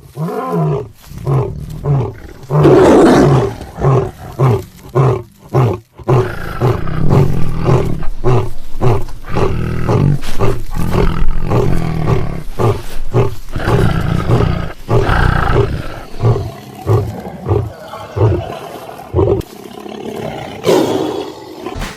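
Tiger roaring and growling: a loud roar about three seconds in, then a long run of short, repeated growls, and another roar near the end.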